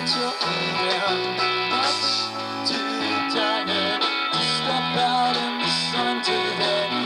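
Band playing live: electric guitars over a bass line and drums, with no singing heard.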